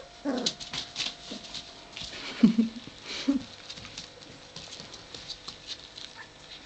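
Puppy being handled up close, giving a few short whines and squeaks in the first half, over the clicking and rustling of fur and handling against the microphone.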